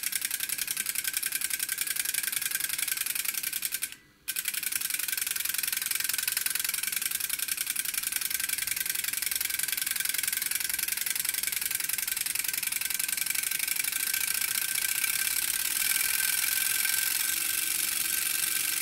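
Electromechanical six-digit counter of a vintage aircraft fatigue consumption indicator clicking rapidly and steadily as it steps forward under a pulsed test signal, with a brief break about four seconds in.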